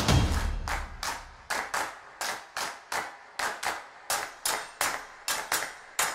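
Background music fades out, then a rhythmic series of sharp claps or knocks sets in, about three a second.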